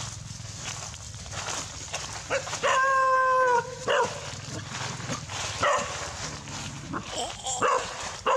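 A puppy yelping and whining, with one long held whine about three seconds in, then several short yelps, over scuffling in dry leaves.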